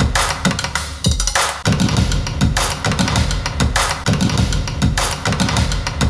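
Music with a heavy drum beat, the low kick hitting about twice a second, played through tower speakers driven by a Yamaha class AB home audio receiver for a sound-quality test.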